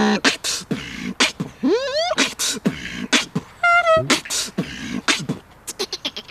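Beatboxer making a fast string of mouth sound effects: sharp clicks and hissing bursts, a rising whooping glide about two seconds in, and a short pitched buzzing tone that dips slightly at about four seconds.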